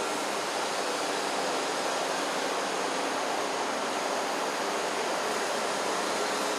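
Steady, unbroken rushing noise at an even level, with a faint steady hum underneath.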